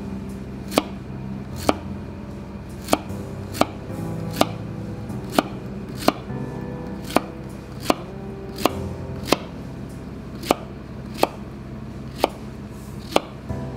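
Kitchen knife slicing a zucchini into rounds on a plastic cutting board, each cut ending in a sharp knock against the board, a little more than one a second, over soft background music.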